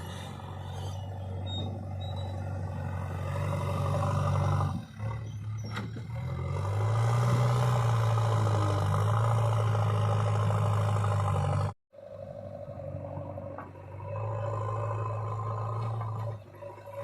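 Heavy diesel engine running steadily with a deep hum, growing louder about seven seconds in as it works harder; the sound cuts out abruptly for a moment near twelve seconds, then the engine resumes.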